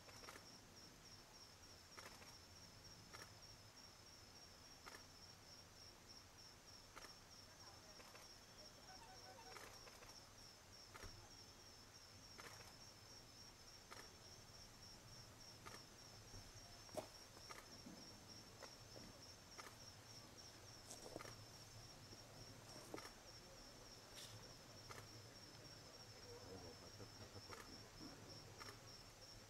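Faint, steady high-pitched insect trill, a rapid even pulsing like a cricket's, with scattered faint clicks.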